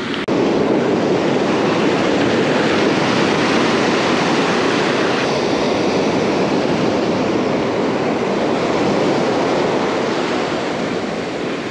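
Ocean surf breaking and washing up the beach in a steady, continuous rush of foaming water.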